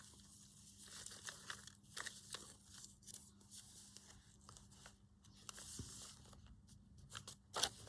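Faint rustling and crinkling of paper and card being handled and sorted, with scattered small ticks and a few louder crinkles near the end.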